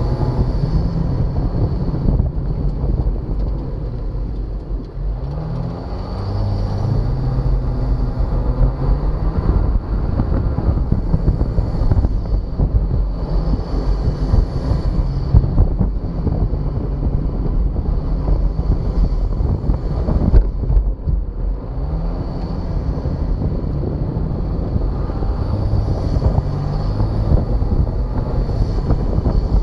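Jeep Wrangler's engine running under load while driving over sand dunes, its pitch rising and falling several times as the throttle is opened and eased. Wind noise on the hood-mounted microphone runs throughout.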